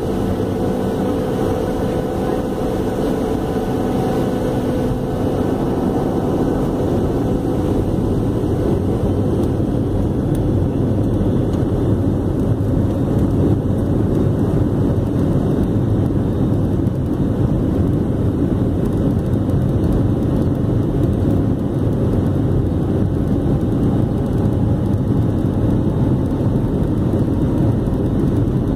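Boeing 737-800's CFM56-7B turbofan engines at takeoff thrust, heard inside the cabin as a steady, loud roar during the takeoff roll. A few steady hum tones fade out within the first five seconds as the roar builds slightly.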